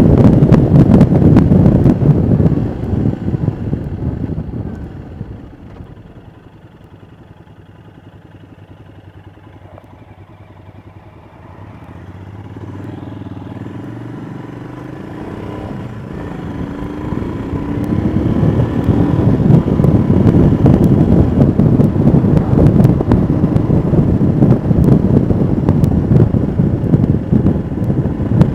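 Royal Enfield Himalayan's single-cylinder engine and wind rush on the move. The wind noise dies away as the bike slows to an idle for several seconds, then the engine revs up through the gears in rising pulls and the wind rush builds back to full.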